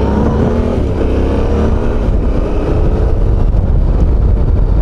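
Yamaha Ténéré motorcycle engine pulling away and accelerating, its note rising as it gathers speed and then holding steady.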